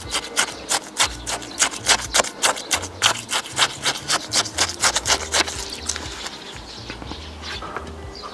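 Close-miked chewing and mouth sounds of someone eating, many wet clicks a second, thinning out after about five seconds. Background music with a steady bass line plays underneath.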